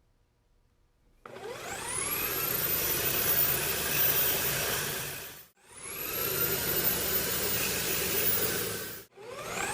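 Electric drill motor switched on and spinning up with a rising whine to full speed, run for a few seconds, and stopped briefly; this happens three times.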